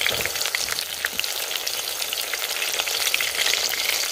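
Sliced onions frying in hot groundnut oil in a steel pot, a steady sizzle peppered with small irregular crackles.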